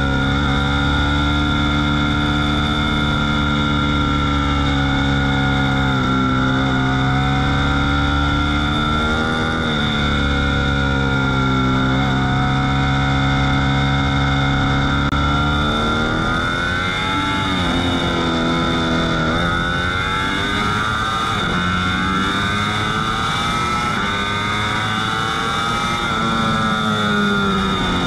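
Ducati V4 S's 1103 cc V4 engine heard from on board at speed, climbing in pitch through the gears. The pitch drops several times, most sharply about two-thirds of the way through, where it falls steeply and then climbs again, with steady rushing noise underneath.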